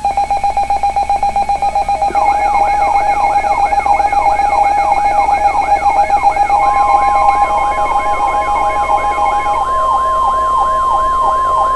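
Electronic emergency alert tones layered together. A rapidly pulsing beep is joined about two seconds in by a repeating falling siren-like sweep, about two and a half per second. About halfway through, the steady 1050 Hz NOAA Weather Radio warning alarm tone comes in, the signal that a warning message is about to follow.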